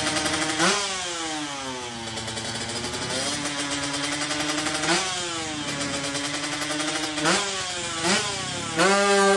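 Drag-racing motorcycle engine revved in throttle blips, about five times: each time the pitch jumps up sharply and then falls slowly back.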